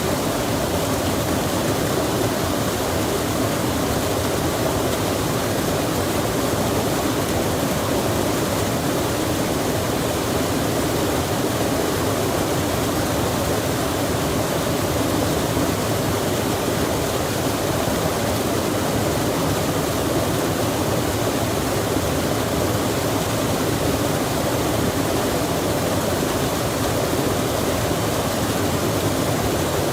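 Steady rushing of a stream mixed with falling rain: an even, unchanging wash of water noise.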